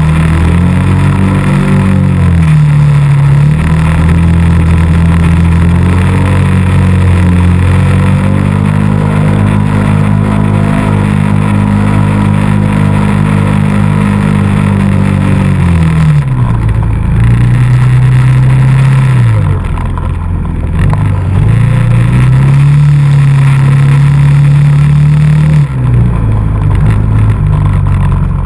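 ATV engine running under throttle while riding through snow, its pitch holding, climbing and falling with the throttle. The engine backs off sharply about two-thirds of the way through, picks up again, and drops once more near the end.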